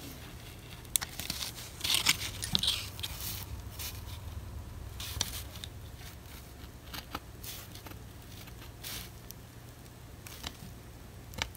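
Utility knife blade scoring along drawn gill lines in a carved wooden lure body: short scratchy cuts and light clicks at irregular intervals.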